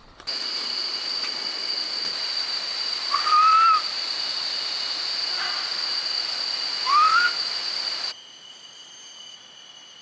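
Rainforest insects droning steadily at one high pitch, with a bird whistling two short upward-sliding notes about three and a half seconds apart. Near the end the drone drops abruptly to quieter, thinner high tones.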